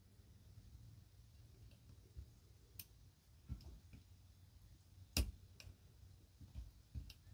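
Faint, scattered metallic clicks of a lock pick and tension wrench working the pin stack of a padlock while it is being picked, with one louder click about five seconds in.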